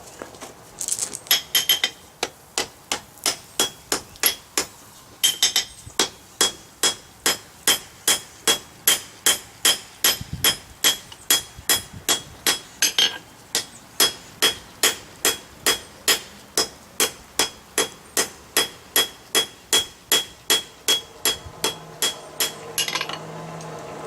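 Hammer blows on hot steel on an anvil, about two a second with a couple of short breaks, each blow followed by a ringing note from the anvil. This is a forge weld being hammered together on a pair of tong reins.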